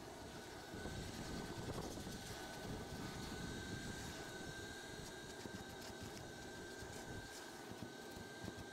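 Vacuum motor running steadily with a thin, constant whine while a narrow hose nozzle is worked along the cloth seat, a little louder between about one and four seconds in.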